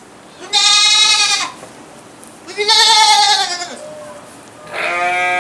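Goats bleating: three loud, slightly wavering bleats about a second each, one after another, as hungry goats call for food.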